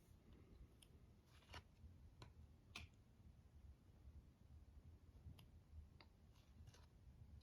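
Near silence, with a handful of faint, scattered clicks and soft rustles from trading cards being handled.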